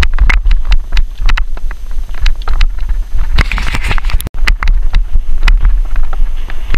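Wind buffeting the microphone of a camera riding on a moving bicycle, a heavy low rumble, with many sharp rattling clicks as the bike jolts over a rough dirt road. The sound cuts out for an instant a little past four seconds in.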